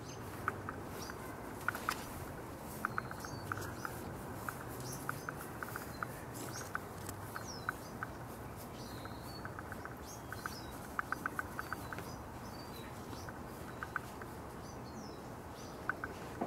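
Small birds chirping in short scattered calls, with runs of quick ticks, over a steady outdoor background hum.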